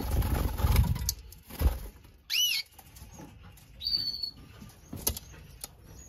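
Canary's wings flapping as it flies down from its perch, then a canary call: one arched chirp rising and falling in pitch about two seconds in and a short high chirp around four seconds. A few light taps are heard in between.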